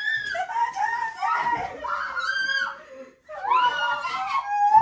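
Girls screaming in fright: a string of long, high-pitched screams that break off briefly a little after three seconds in and then start again.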